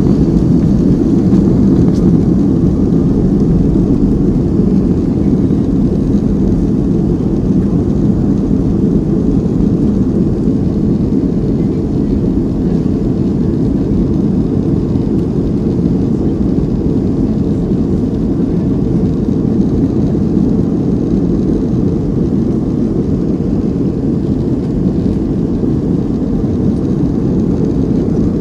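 Steady low roar of a Boeing 757-232's Pratt & Whitney PW2000-series turbofan engines at takeoff thrust, heard inside the cabin during liftoff and the initial climb. It is slightly louder in the first few seconds, then holds even.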